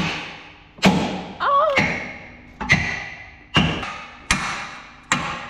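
Hammer blows on steel: six heavy strikes at an uneven pace, roughly a second apart, each ringing briefly, as a bolt is driven into a lorry's tag axle mounting.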